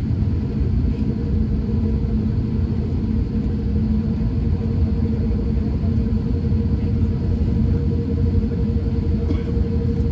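Cabin noise inside an Airbus A350-1000 taxiing after landing: a steady low rumble with a constant droning hum.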